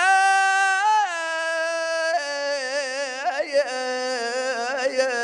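A man's voice chanting a lament on one long, unbroken held note, with no words. The pitch steps slowly downward, with wavering trills in the middle and again near the end.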